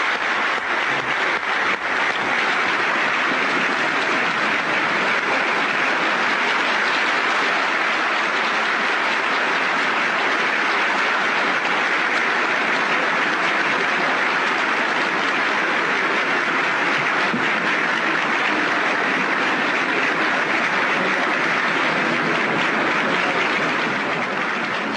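Large crowd applauding steadily and continuously, fading out near the end.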